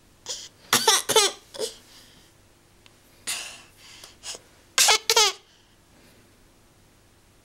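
Toddler laughing and squealing in short, high-pitched bursts, in two clusters a few seconds apart, with a breathy huff between them.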